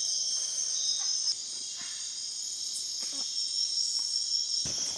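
Night-time rainforest insect chorus, crickets trilling steadily at a high pitch, with a slight drop in level about a second and a half in.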